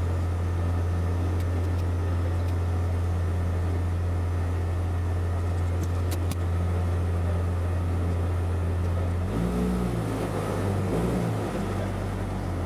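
Piper PA-38 Tomahawk's four-cylinder Lycoming engine and propeller running, heard from inside the cabin as a steady low drone. About nine seconds in, the note turns uneven and shifts in pitch, with more rushing noise above it.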